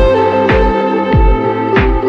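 Background music: sustained instrumental notes over a steady deep drum beat, about one beat every 0.6 seconds.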